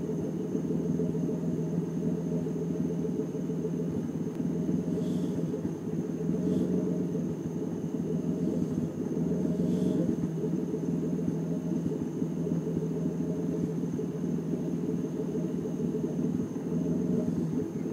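BMW E36's engine idling roughly, its steady rumble wavering unevenly in level.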